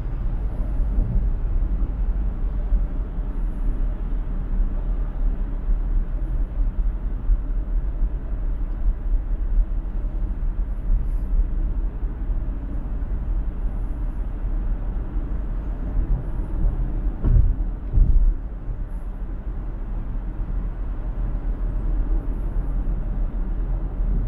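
Steady low rumble of road and tyre noise from a car driving at highway speed, with two short louder thumps about three-quarters of the way through.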